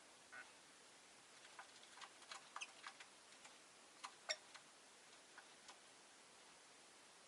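Rosy-faced lovebird giving a scattered series of short, faint chirps and chips, about a dozen, the loudest one a little past the middle.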